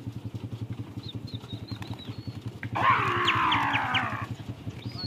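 A farm animal calls once, loudly, for about a second and a half, its pitch falling, over a steady low rhythmic throb. Faint high whistled bird notes come before it and again near the end.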